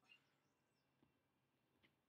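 Near silence, with a few very faint high chirps and a light click.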